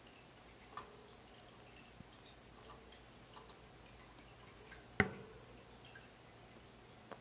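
Pet rat moving about on a wire-mesh cage shelf beside a ceramic food bowl: faint scattered clicks and small taps, with one sharper knock about five seconds in.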